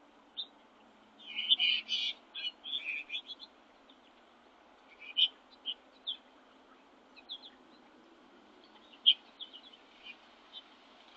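Small songbirds giving short, high chirps in scattered bursts, busiest from about one to three seconds in, with further bursts in the middle and near the end.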